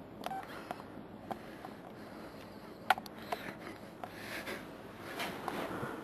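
Faint rustling and scattered small clicks of movement and camera handling, with one sharper click about three seconds in.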